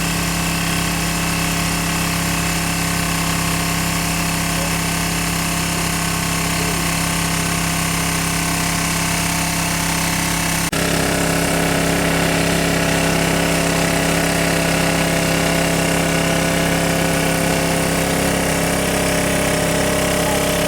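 Engine-driven water pump running steadily, a constant mechanical drone with an even hum. About 11 seconds in the sound changes abruptly and gets slightly louder.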